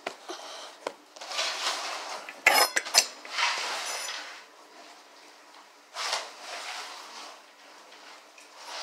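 Dishes and cutlery being handled, with rustling clatter and two sharp, ringing clinks about two and a half and three seconds in.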